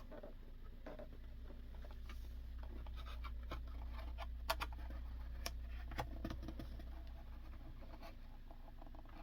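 Hot Wheels die-cast toy cars being handled: scattered light clicks and scratching, with a few sharper clicks near the middle, over a low steady hum.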